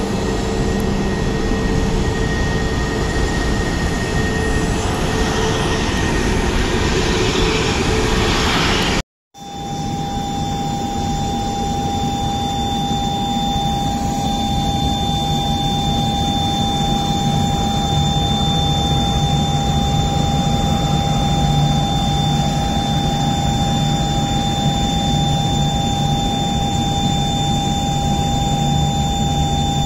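Airliner jet engines running at taxi power: a steady rushing noise that stops dead for a moment about nine seconds in, then goes on with a steady, even high whine over it.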